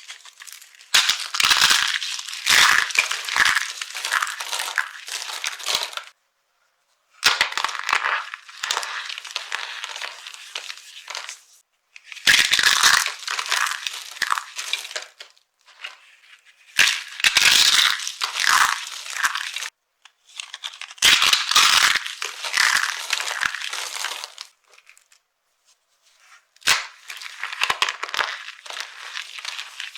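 Dry soap being crushed, a crisp crunching and crackling with sharp cracks in it. It comes in about six bouts of a few seconds each, broken by short silences.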